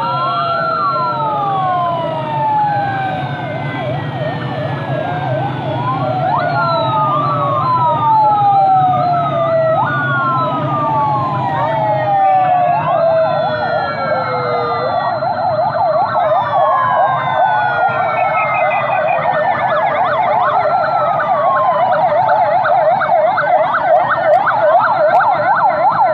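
Several police sirens sounding at once from a passing convoy: overlapping slow wails that rise and fall, joined about a third of the way in by fast yelping warbles, over a low rumble of engines. The sound grows gradually louder toward the end.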